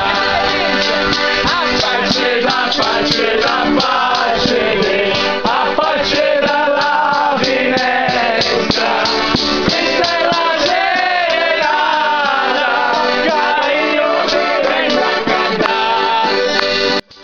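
Accordions playing a folk serenade, with a tambourine jingling a fast, even beat and voices singing over them. The music cuts off suddenly just at the end.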